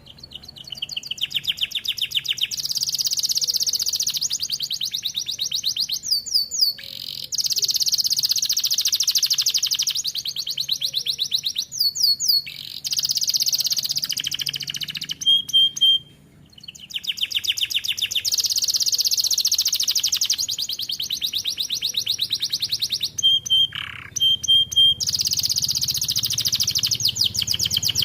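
Young domestic canary singing in full voice: long phrases of fast trills of rapidly repeated notes, each running several seconds, broken by short pauses and a few brief whistled notes.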